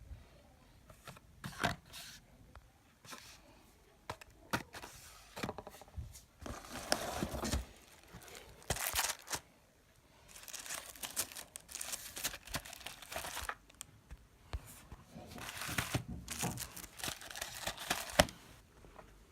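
Packaging being torn open and crinkled by hand in irregular bursts, with scattered clicks and light knocks between them.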